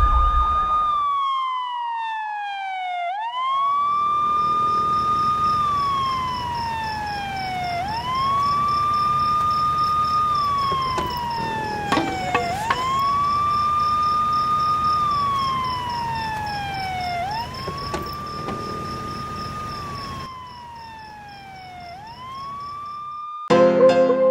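A siren wailing: each cycle jumps up in pitch, holds briefly, then slides slowly down, repeating about every five seconds, with a steady high whine above it for most of the time. Keyboard music comes in near the end.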